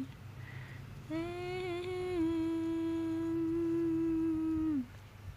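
A person humming a lullaby: the tail of one note at the very start, then one long, steady held note from about a second in to near the end, wavering briefly as it begins.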